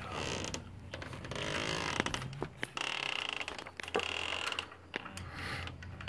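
Screen door rattling and clicking as it is handled, with two short high creaks near the middle.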